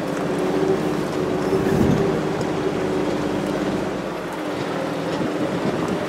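Jeep Wrangler TJ's engine running steadily at low revs while crawling over rock, heard from inside the vehicle, with a louder low rumble about two seconds in.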